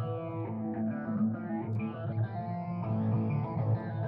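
Background music led by guitar, with sustained notes over a low bass line.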